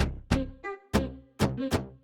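Instrumental background music with a beat of sharp percussive hits, each hit ringing out briefly, over steady low tones.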